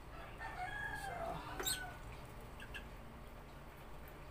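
Faint bird calls with a gliding pitch, then a single sharp click about a second and a half in.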